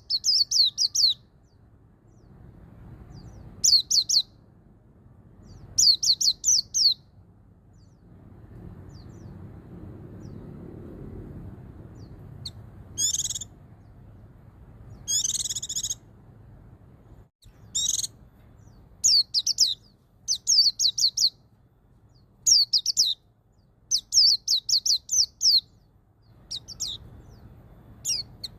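White-eye (pleci) singing its 'ngalas' song: short, high phrases of a few quick repeated notes, each about a second long and repeated every one to two seconds, with a few harsher buzzy calls about midway.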